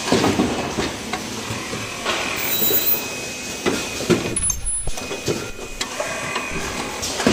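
Richpeace automatic cup-mask production line running: its chain conveyor and pneumatic stations clicking and clacking irregularly over a steady mechanical hum, with a faint steady high tone.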